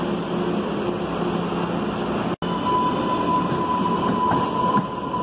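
Green Line light-rail train running through an underground subway station: a steady rumbling roar. The sound drops out for an instant a little before halfway through. After that a steady high-pitched wheel squeal sits over the rumble.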